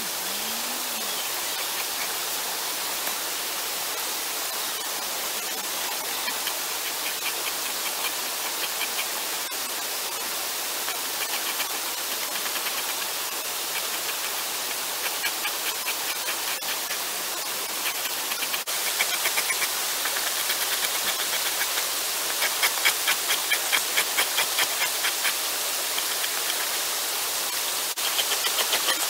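Steady rushing of a creek, over which a two-handed blade scrapes down a lye-swollen deer hide on a wooden beam again and again, slipping the hair off. The strokes are faint at first and become louder and more regular in the second half, about two a second.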